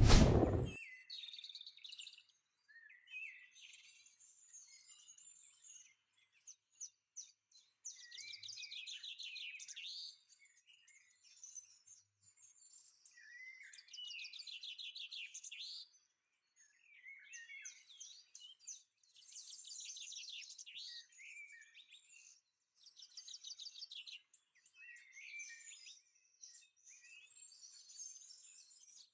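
Birds chirping and singing in quick high trills, in phrases of a second or two separated by short pauses. A brief loud thump comes right at the start.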